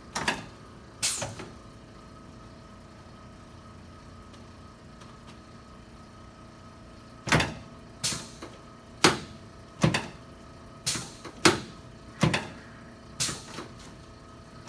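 Sharp mechanical clacks from chiropractic adjusting equipment during a neck adjustment: two near the start, then after a lull about nine more, roughly one a second.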